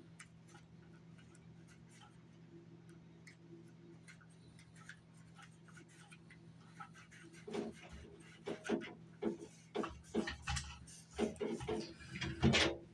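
Handling and cloth-wiping of a PS5 Pulse 3D headset's plastic shell. It is quiet with a low steady hum at first, then from about seven and a half seconds in comes a quick, irregular run of rubbing strokes and light clicks.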